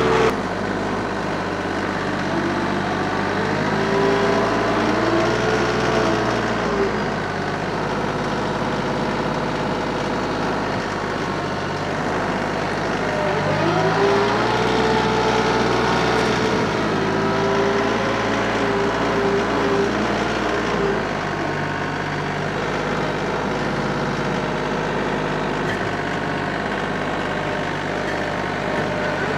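TYM compact tractor's engine running steadily under load while grading soil, its engine speed dipping and rising a few times as the load changes.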